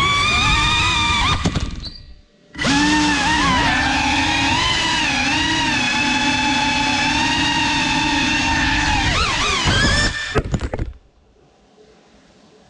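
GEPRC CineLog35 cinewhoop's brushless motors and ducted propellers whining, the pitch rising and falling with the throttle. The whine drops out briefly about two seconds in, then runs steadily for several seconds, stutters and cuts out near the end.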